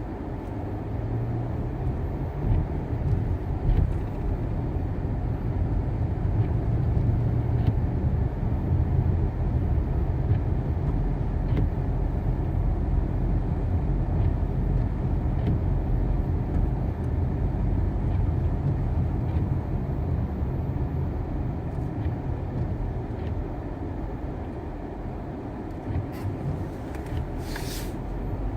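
Steady low rumble of a car driving on a snow-covered road, heard from inside the cabin: engine and tyre noise. Faint ticks come about every two seconds, and a brief hiss sounds near the end.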